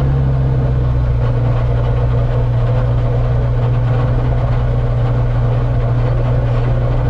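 An AR-1 autogyro's four-cylinder Rotax iS engine running steadily just after start, heard from inside the closed cockpit canopy.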